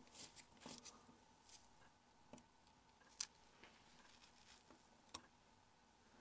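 Near silence with a few faint, sharp clicks of a small screwdriver and tweezers working tiny countersunk screws in a mobile phone's metal back cover. The clearest click comes about three seconds in, and a smaller one near the end.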